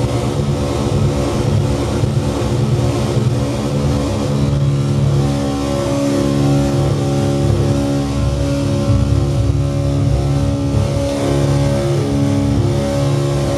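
Loud, steady drone of several low held tones layered together, with higher tones shifting in pitch from about four seconds in.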